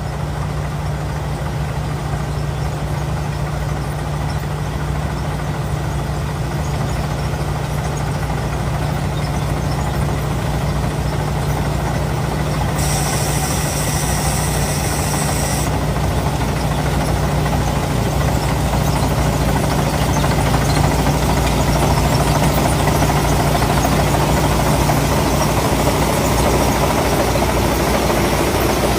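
Combine harvester's engine and threshing machinery running steadily, growing a little louder in the second half. About halfway through there is a high-pitched whine lasting about three seconds.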